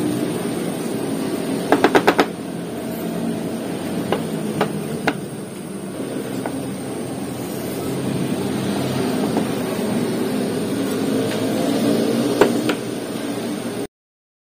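Parts of a disassembled HP 85A toner cartridge being handled: a quick run of several sharp clicks and knocks about two seconds in, then a few scattered single clicks, over a steady background hum. The sound cuts out abruptly near the end.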